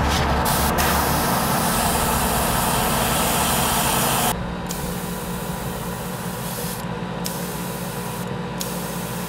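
Paint being sprayed onto a plastic scale model: a loud steady hiss that drops suddenly about four seconds in to a softer hiss, broken off briefly a couple of times, over a steady low hum.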